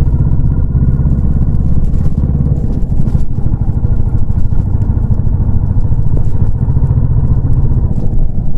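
Royal Enfield Classic 350's single-cylinder engine running under way, its exhaust a steady rapid beat of low pulses. The beat eases a little around three seconds in and firms up again near the end.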